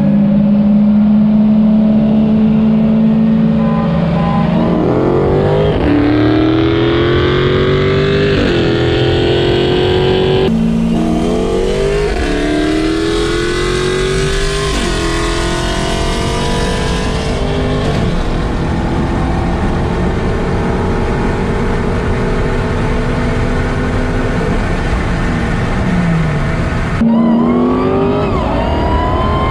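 Performance car engines held at a steady speed, then accelerating hard through the gears in a street race: the engine note climbs, drops back at each upshift and climbs again several times.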